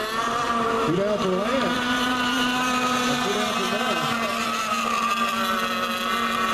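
Engines of radio-controlled model race boats running flat out in a race, a steady high-pitched whine.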